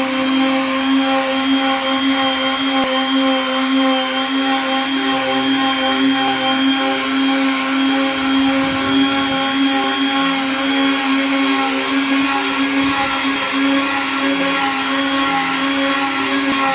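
Electric sheet sander running steadily as its pad is worked over body filler on a car door panel. A steady motor hum with a thin high whine above it.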